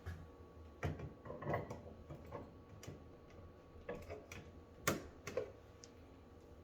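Scattered light clicks and taps of a washing machine hose fitting and its washer being handled and fitted back on by hand, about one every half second to second, the loudest about five seconds in.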